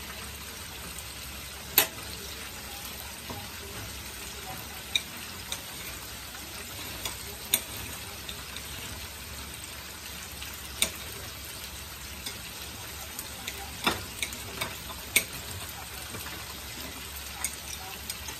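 Steady sizzle of food frying in hot oil in a pan, with a few short sharp clicks of a utensil against the pan scattered through.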